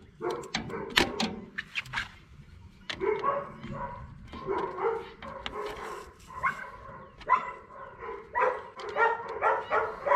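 Several dogs barking at once, short repeated barks overlapping without a break. A few sharp clicks and knocks in the first two seconds.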